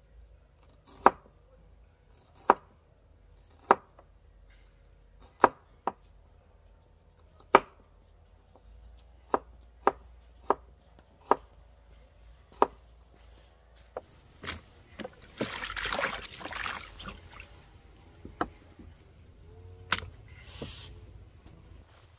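Knife chopping on a cutting board, single sharp strokes one to two seconds apart, with a rustling noise lasting about two seconds about two-thirds of the way through.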